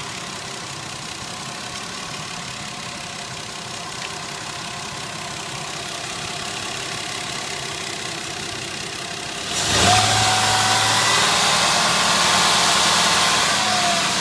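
2003 Ford Escape engine idling, then a little under ten seconds in it revs up suddenly and stays revved instead of dropping back to idle. This hanging idle is what the owner suspects comes from a vacuum leak.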